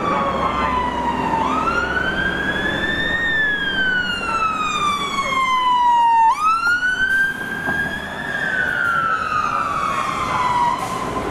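Fire engine siren on a slow wail, its pitch rising quickly and falling slowly in cycles of about four to five seconds, over traffic noise as the engine drives past.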